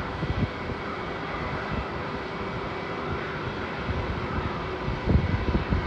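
Jet engines of a taxiing JetBlue airliner running at low taxi power: a steady whine and rush with faint steady tones through it. About five seconds in, wind starts buffeting the microphone in low gusts.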